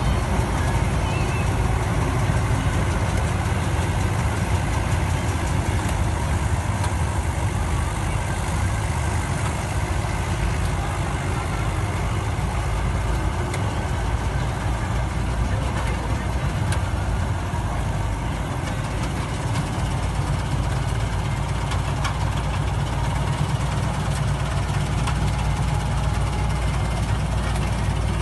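Rice combine harvester's engine and machinery running steadily, a continuous low mechanical drone without a break.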